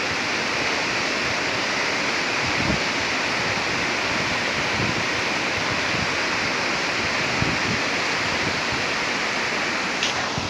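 Steady rushing noise of a storm: wind and heavy rain, even and unbroken.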